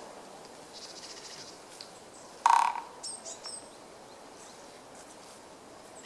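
Japanese pygmy woodpecker drumming on a tree trunk: one short, loud roll of a fraction of a second about two and a half seconds in, which the recordist finds rather slow for the species. Faint high bird chirps follow just after it.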